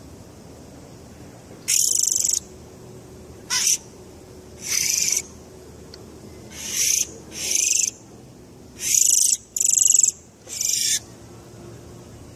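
A bird giving eight harsh, hissing calls in irregular succession, each lasting a fraction of a second.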